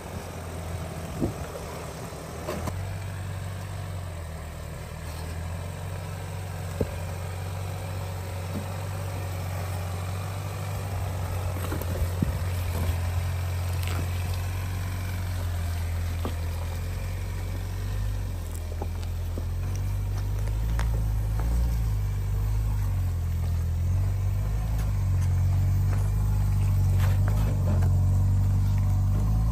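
Ford Bronco Sport Sasquatch's engine running at low revs as the SUV crawls over rocks off-road. It is a low drone that grows louder toward the end, with a few sharp clicks here and there.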